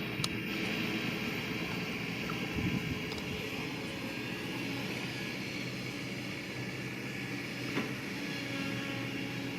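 Heavy earth-moving machine's diesel engine running steadily, with a few faint knocks.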